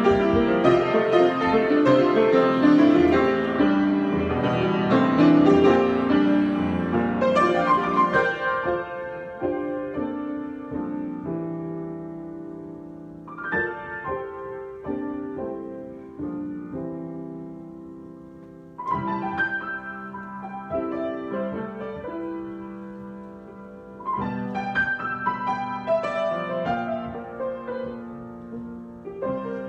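Solo piano improvisation. A dense, flowing passage for the first several seconds thins into slower chords, struck a few seconds apart and left to ring and fade.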